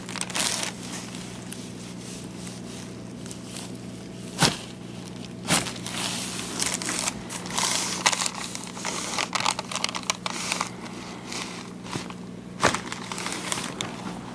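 Crinkling and rustling of handling and body movement on a chiropractic treatment table, broken by a few sharp cracks, over a steady low hum.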